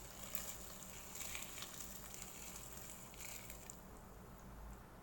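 Water pouring in a stream into a stainless steel bowl of dry instant noodle blocks, a faint hiss and splash that stops about three-quarters of the way through.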